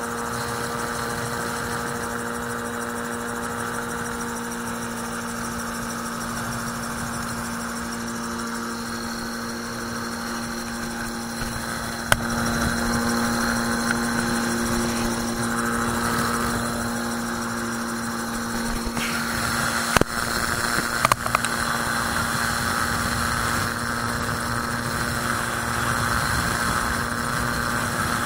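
Magni M16 autogyro's engine and pusher propeller running steadily at power through takeoff and climb-out, a steady drone heard from the open cockpit. It gets a little louder about twelve seconds in, and a few sharp clicks come after that.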